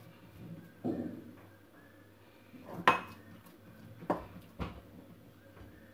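A glass mixing bowl knocking against a stone counter about four times as hands turn and press oiled bread dough inside it, the loudest knock about three seconds in.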